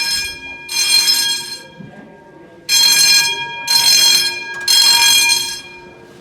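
Building fire alarm sounding loudly in bursts of about a second, three in a row with short gaps and then a longer pause: the temporal-three evacuation signal.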